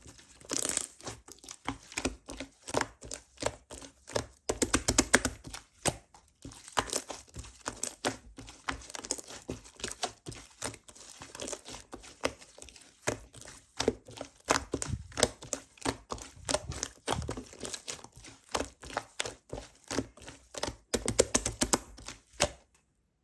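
Slime being squished and pressed by hand, giving dense, irregular crackling and popping clicks in bursts. It cuts off near the end.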